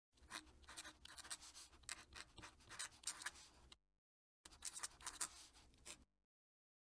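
Fountain pen nib scratching faintly across paper in quick cursive strokes. There are two runs of writing with a short pause about halfway, and the writing stops shortly before the end.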